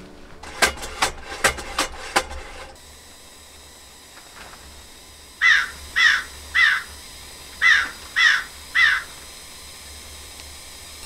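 A crow cawing six times in two sets of three, a comic sound effect. Before it, about five sharp clicks as the Paseco kerosene heater's ignition is worked.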